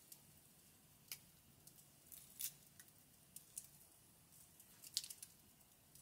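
Faint scratchy ticks and small scrapes of fingers rubbing grit and dirt off a small found object, scattered and irregular, the sharpest about two and a half and five seconds in.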